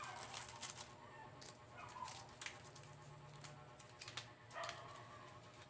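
Coins clinking and shifting in a glass bowl as hands rummage through them, a cluster of clicks in the first second, then scattered light clicks and taps.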